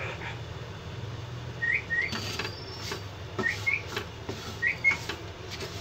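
Wooden spatula stirring and scraping vermicelli and grated coconut roasting in ghee in a non-stick kadhai. Three pairs of short, high, rising chirps come about a second apart over a steady low hum.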